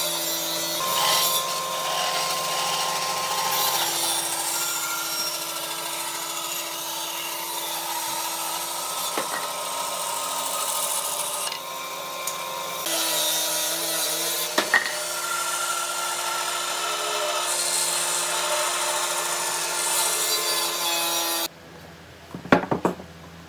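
An electric woodworking power tool working on wood: a steady motor hum under a rasping wood noise, with a couple of sharp knocks. It stops abruptly near the end, leaving a few clattering knocks.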